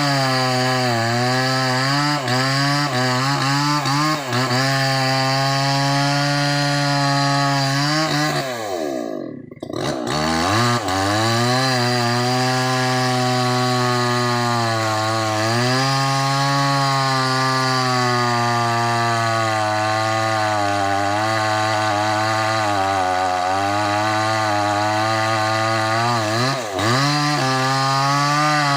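Small two-stroke chainsaw running at high revs as it cuts through a large mahogany log, its engine pitch sagging and wavering under load. About a third of the way in the engine falls away almost to idle, then revs back up into the cut; it dips briefly again near the end.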